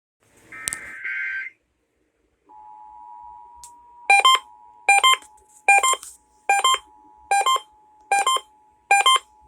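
Emergency Alert System test tones: a short screeching burst of SAME header data ends about a second in. About two and a half seconds in, the quiet two-tone attention signal starts, overlaid by a loud beep repeating about every 0.8 seconds.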